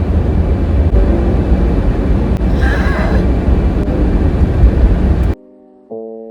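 Car driving, heard from inside the cabin: a steady low rumble of road and engine noise that cuts off suddenly about five seconds in, followed by piano music near the end.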